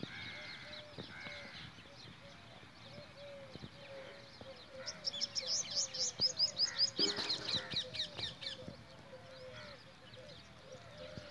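Small birds chirping, with a fast, louder run of high chirps from about five to nine seconds in, over a short, lower call that repeats a couple of times a second.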